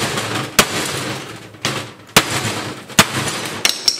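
A small sledgehammer strikes a steel wrench on a hydraulic cylinder's threaded end cap: about five sharp metal-on-metal blows, each ringing on briefly. The blows are meant to break loose the seized end of the forklift tilt cylinder.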